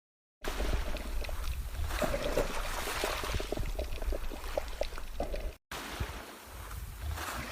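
Outdoor ambient noise with a heavy low rumble and scattered small clicks; it drops out for a moment about five and a half seconds in.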